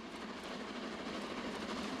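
A train running with a steady rattle of wheels on rails, growing steadily louder.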